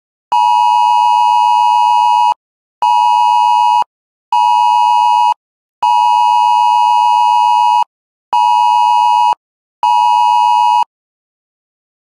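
iPhone Wireless Emergency Alert attention tone announcing an AMBER Alert: a loud, harsh two-tone signal. It sounds in six blasts, one long then two short, twice over, then stops.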